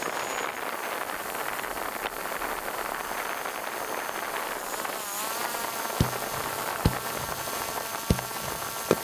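A fireworks display: a steady dense hiss and crackle, then four dull booms of shells bursting about once a second in the second half. From about five seconds in, a whine of several tones bends and then holds steady, the drone's propellers heard under the show.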